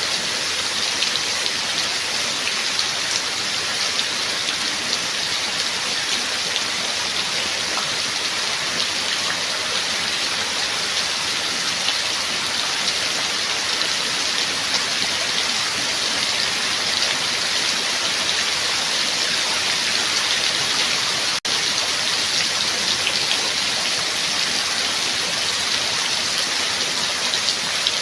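Steady rain falling: a dense, even hiss with fine patter of drops. There is a split-second gap about three-quarters of the way through.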